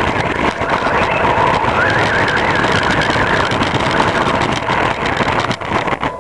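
HPI Blitz short-course RC truck with a brushless electric motor, heard from a camera mounted on it: a dense, steady rush of drivetrain and tyre noise, with a high motor whine that wavers up and down from about two seconds in.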